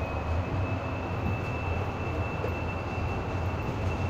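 MTR M-Train (Metro-Cammell EMU) car running, heard from inside the car: a steady low rumble of wheels and running gear, with a thin, steady high-pitched whine over it.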